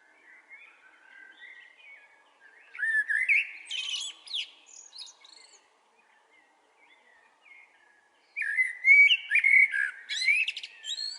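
Small songbirds chirping in the dawn chorus. Two bouts of quick gliding whistled chirps come from several birds, the second near the end the louder.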